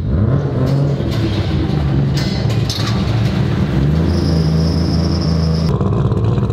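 Three-rotor Mazda RX-7 with a street-ported rotary engine, running at a steady idle with small uneven shifts in its note; it is untuned and still has idling stumbles. A steady high whine joins about four seconds in.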